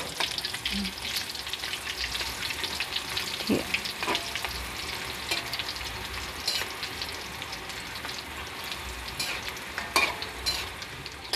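Wonton skins sizzling and crackling as they deep-fry in hot oil in a metal wok, turned with a metal spatula that scrapes the pan a few times.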